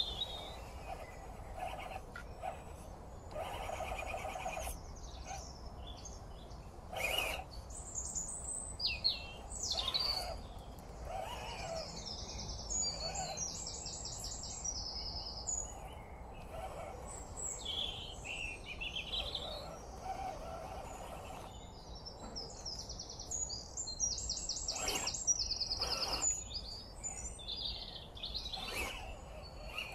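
Songbirds singing and calling: many short high chirps, with two fast high trills, one near the middle and one later.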